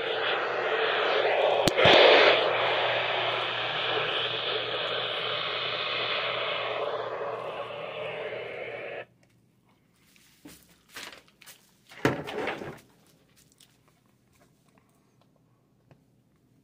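Radio receiver static hiss with a low hum under it, surging briefly about two seconds in and cutting off suddenly about nine seconds in, as when the squelch closes. A few faint clicks follow.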